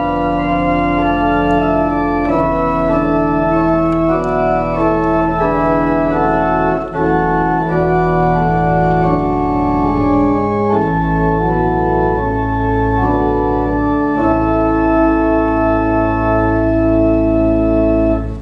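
Church organ playing slow, sustained chords with deep bass notes, ending on a long held chord that cuts off abruptly.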